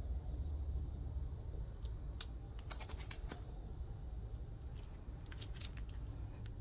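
Plastic-bagged comic books being handled: the sleeves crinkle and tick in two short clusters, about two seconds in and again about five seconds in, over a low steady hum.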